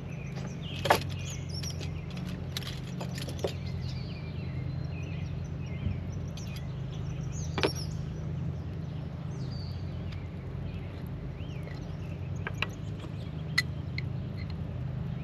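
Birds chirping over a steady low hum, with a few sharp clicks scattered through, like utensils knocking on a pot.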